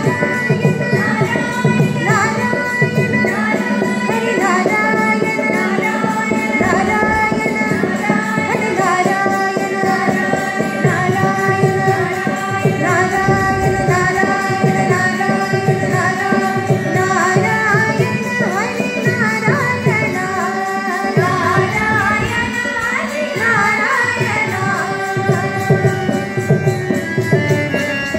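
Live Carnatic devotional music: a bhajan sung over melodic accompaniment, a steady drone and hand-drum strokes.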